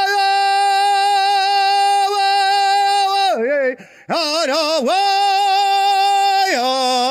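A single voice singing a long wordless held note, steady in pitch. About three seconds in it breaks into a wavering, warbling run with a brief gap, then returns to the held note and drops to a lower note near the end.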